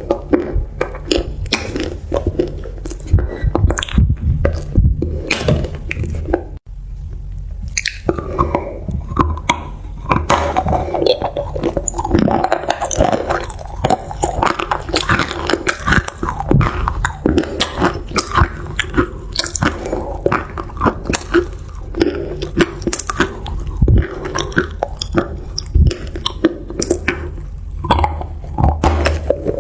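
Close-miked chewing and crunching of crunchy food, a dense run of crisp, irregular crunches with a brief break a little over six seconds in.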